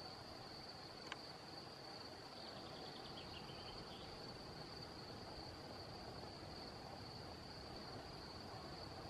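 A steady high-pitched insect trill runs over a faint outdoor hiss. About two and a half seconds in, a small bird gives a quick run of rapid high notes that drifts slightly lower, and a single faint click comes about a second in.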